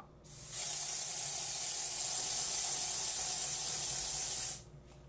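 Aerosol can of strong-hold hairspray spraying in one continuous, steady hiss lasting about four seconds, starting just after the beginning and cutting off near the end.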